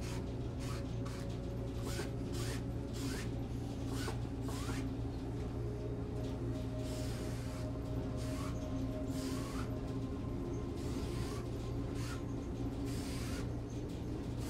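Wide bristle paintbrush stroking acrylic paint back and forth across a canvas: a steady run of scratchy swishes, about two strokes a second, over a low steady hum.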